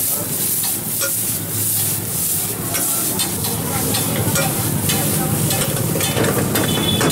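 Fried paneer cubes sizzling in hot oil in a wok on a gas burner, while a metal ladle scrapes and knocks against the pan as the cook stirs and tosses them. The hiss of the frying is steady, broken by many short clicks of the ladle.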